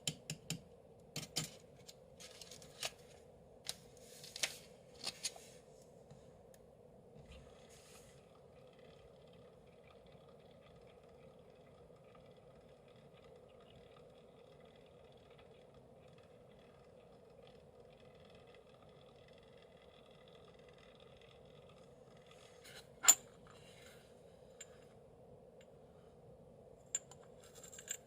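Pachipachi Panic popping candy crackling in the mouth: scattered sharp snaps in the first few seconds die away into a long quiet stretch with a steady faint hum, broken by one loud snap a little past the two-thirds mark and a few more near the end.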